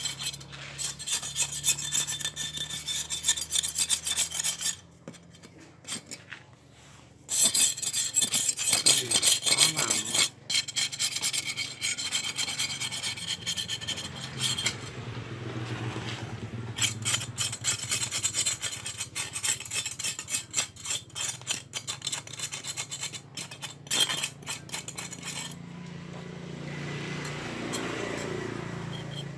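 Rapid rasping and scraping strokes in long runs, with a short pause partway through and quieter scraping near the end.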